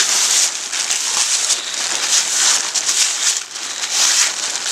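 Blue plastic tarp crinkling and rustling as it is grabbed and bunched by hand, a dense irregular crackle throughout.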